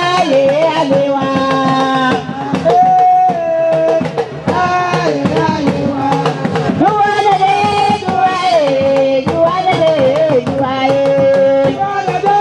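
Music with drums beating under a melody of long held notes that slide from one pitch to the next.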